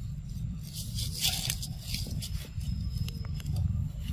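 Dry leaf litter crackling and rustling as a macaque moves over it, with scattered clicks and a steady low rumble underneath.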